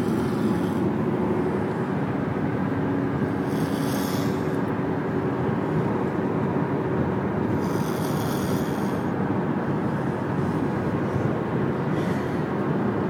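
Steady road and engine noise inside a moving car. Over it, a sleeping boy snores through his open mouth, with a hissy breath about every four seconds.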